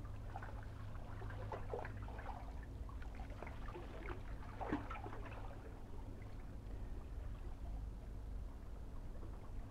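Faint, irregular lapping of small waves at the water's edge, over a steady low hum.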